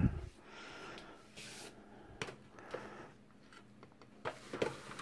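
A muffled thump at the start, then a few faint, scattered clicks and knocks from light handling.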